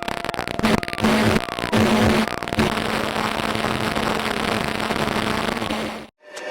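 Electronic 'space sound' presented as the sound of a trans-Neptunian object: a dense crackling noise over a low hum that comes and goes in short pieces, then holds steady. It cuts off suddenly near the end, and a different droning track with several steady tones starts.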